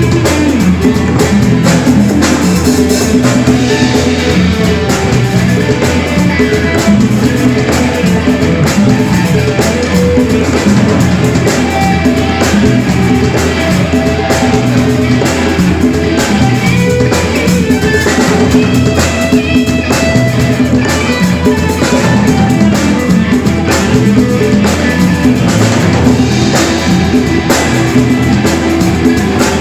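Live band playing a rock song, with guitar and drum kit.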